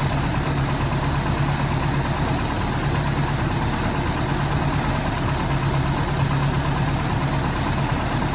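Toyota 20R four-cylinder engine with a Weber 32/36 carburettor idling steadily, with a low drone that comes and goes every second or so.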